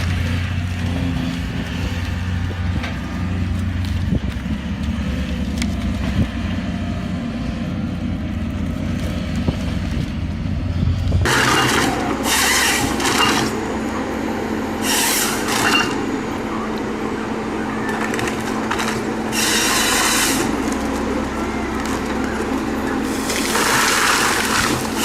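Heavy machine engine running with a steady low drone. About eleven seconds in, the sound switches abruptly to a different machine: a steady hum broken every few seconds by short bursts of rasping noise, four in all.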